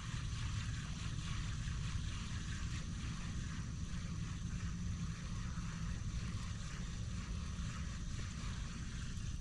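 Steady low rumble and hiss of a fishing kayak under way on calm water, with a faint steady high whine.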